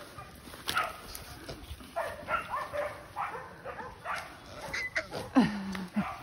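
Hunting dogs barking in short, scattered calls, with one longer call about five and a half seconds in that drops in pitch and holds low.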